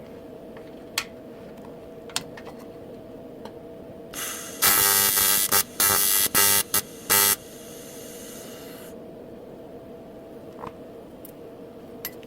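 Welding arc on an aluminium fuel tank, buzzing in several short start-and-stop bursts about four and a half seconds in, with a fainter hiss just before and after. A steady hum and a few sharp clicks lie underneath.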